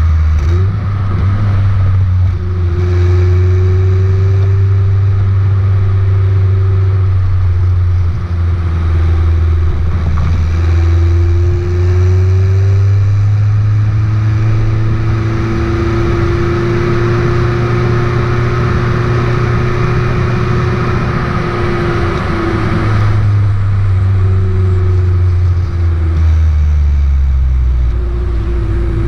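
Stock exhaust of a Kia Elan's naturally aspirated 1.8-litre four-cylinder engine while driving. The engine note rises and falls with the throttle, with a few short dips along the way.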